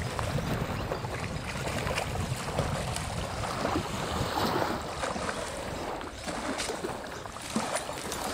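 Wind buffeting the microphone, with small waves lapping at the lake's edge and a few light knocks and rustles from the camera being carried along the bank.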